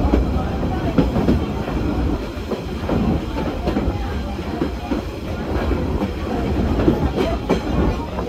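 Metre-gauge heritage train carriages running along the track, heard from an open carriage platform: a steady rumble of the wheels on the rails, with irregular clicks and knocks from the rail joints.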